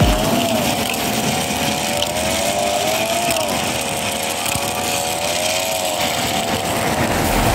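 Engine sound effect made with a small electric fan: a steady motor hum whose pitch rises and falls gently several times.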